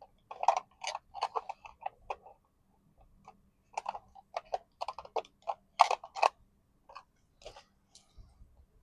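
Small plastic parts of a miniature toy refrigerator clicking and tapping irregularly as its tiny shelves and pieces are handled and pushed into place.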